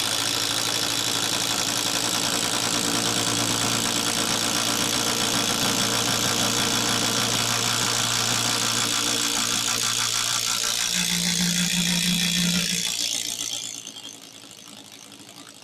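Hyper Tough 12-volt brushless impact driver hammering steadily as it bores a 5/8-inch paddle bit through a wooden beam. It stops near the end as the hole is finished.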